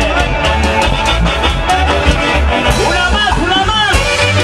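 Huaylas music played live by a band: saxophones carry the melody over keyboard and a steady drum beat.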